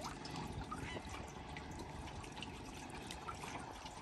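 Water trickling and dripping with small splashes as a wet fishing net is worked by hand over the side of a small boat.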